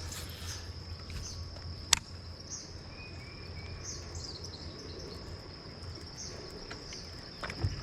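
Steady high-pitched insect chorus of crickets, with scattered short bird chirps and a low steady hum underneath. A single sharp click about two seconds in.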